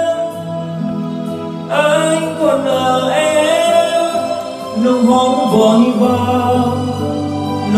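Karaoke backing music playing through large PA speakers, with a singer coming in about two seconds in on a long, wavering note sung through the karaoke microphone.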